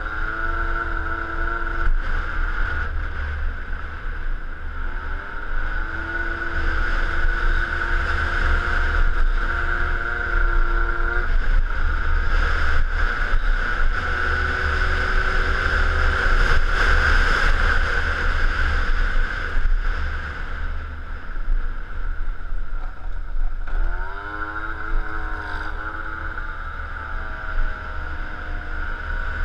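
Peugeot Speedfight 2 scooter's engine running under way, its pitch rising as it accelerates about five seconds in and again about two thirds through, steady in between, with wind buffeting the microphone throughout.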